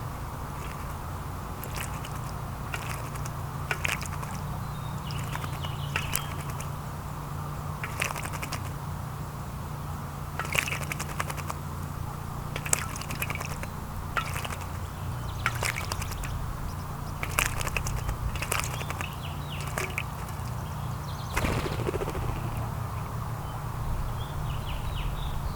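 Small backyard birds giving short, scattered chirps, mixed with sharp little clicks and taps, over a steady low rumble.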